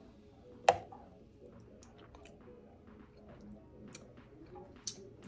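A spoon knocks once against the blender jar about a second in, a short sharp click, followed by a few faint small clicks.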